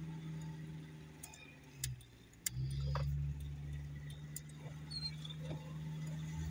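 Car engine running steadily, heard from inside the cabin; it drops away briefly about two seconds in and comes back stronger. Scattered light ticks and clicks sound over it.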